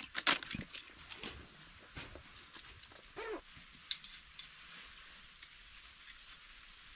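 Crunching, scuffing clicks in snow for the first second or so, then a short whine from a German shepherd dog about three seconds in, falling in pitch. A sharp click follows about a second later.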